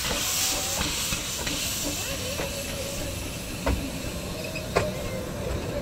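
Small narrow-gauge steam locomotive hissing steam as it pulls its train away, the hiss fading. Irregular sharp clicks from the wheels and couplings run through it.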